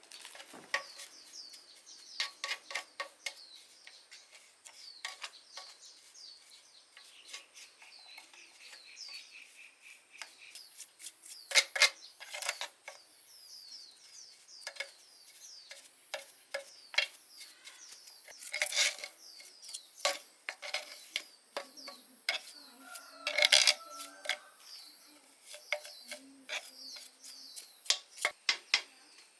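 Scattered light metallic clinks and knocks of hand tools and parts being handled, a few sharper strikes among them. Small birds chirp repeatedly in the background.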